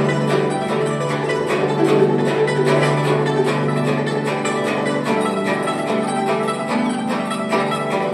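Guzheng (Chinese zither) played solo: a fast, dense stream of plucked notes over ringing low notes, at an even loudness.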